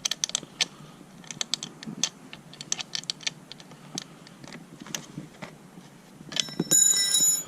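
Irregular small clicks and taps of hand tools and Torx bits being handled, then near the end a louder metallic clink that rings for about a second.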